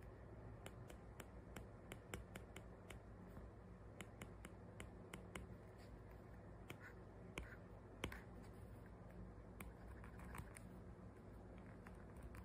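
Metal replacement nib of an Apple Pencil clicking on a tablet's glass screen while writing: sharp, irregular clicks, roughly two a second, as each stroke touches down, over a faint low hum.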